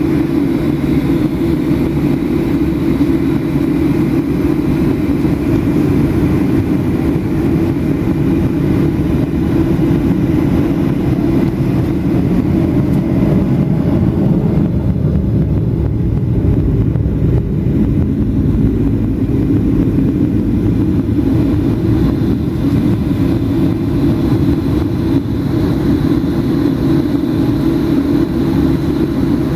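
Steady low rumble inside the cabin of a Boeing 737-800 taxiing, its CFM56-7B engines running at low thrust. The higher hiss thins for a few seconds midway.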